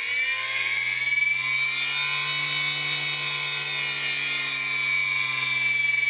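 Betts single-phase capacitor dishwasher pump motor, driven by a variable frequency drive well above its 50 Hz rating, running with a loud, steady whine of several tones and a high-pitched drive tone on top; the pitch shifts slightly over the first few seconds. It is running on worn, noisy bearings.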